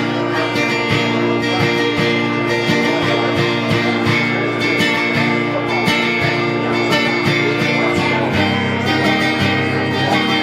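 Live rock band playing an instrumental break of a song, with strummed guitar chords over bass and a steady beat.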